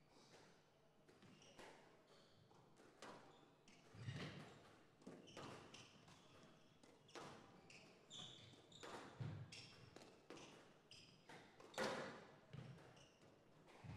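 Squash rally heard faintly: the ball struck by rackets and slapping off the walls in irregular sharp hits, roughly one a second, getting louder about four seconds in, with the loudest hit near the end. Short shoe squeaks on the court floor come between the hits.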